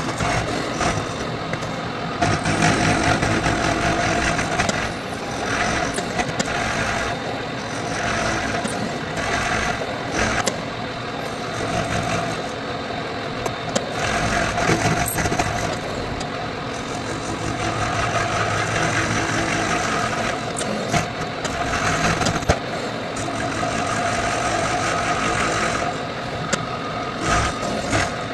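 Milling machine with an end mill cutting a notch into the end of a thick pipe: a continuous machining noise with a steady whine, swelling and easing every few seconds as the cutter works through the metal.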